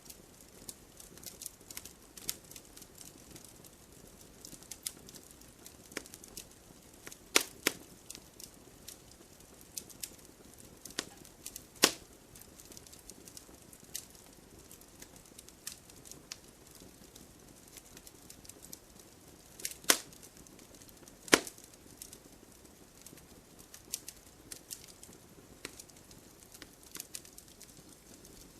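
Campfire burning: wood crackling with many small irregular clicks over a faint hiss. A handful of louder, sharp pops stand out: two close together about seven and a half seconds in, and others about twelve, twenty and twenty-one seconds in.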